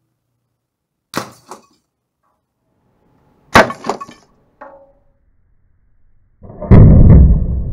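A homemade speargun fires with a sharp double snap about a second in. A louder sharp crack with a short ring follows in the middle, then a smaller clink, as the shaft strikes at a tin can target. Loud music starts near the end.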